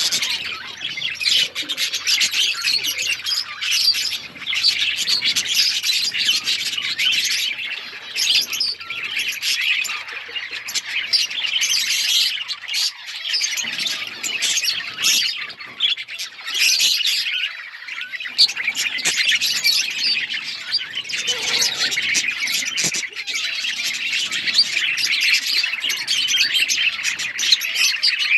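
A flock of budgerigars (budgies) chattering and chirping all at once, many overlapping short calls in a continuous dense chatter.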